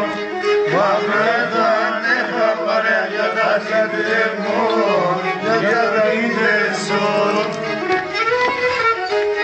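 Bowed Greek lyra playing a lively, ornamented folk melody, with pitches gliding and wavering.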